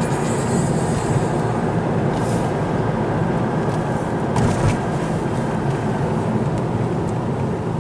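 Car driving along a village road, heard from inside the cabin: a steady low rumble of engine and tyres.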